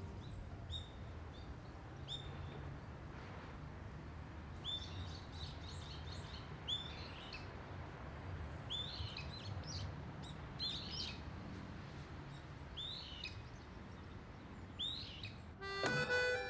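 Small birds chirping: short, separate calls, each a quick pitch slide, repeating every second or so over a low, steady outdoor ambience. Plucked instrumental music comes in near the end.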